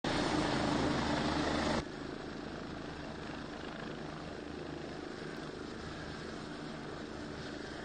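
Helicopter hovering overhead, its rotor and engine running steadily; the sound drops abruptly to a lower level a little under two seconds in.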